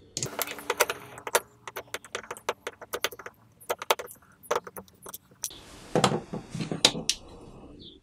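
Screw being driven by hand into a wooden block with a Leatherman Rebar's fixed Phillips screwdriver: a run of irregular metallic clicks as the multitool is twisted and regripped. About six seconds in comes a louder clatter of the multitool being handled.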